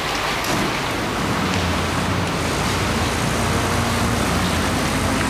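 Steady engine hum under a wash of outdoor noise, a low drone that grows a little louder about a second in.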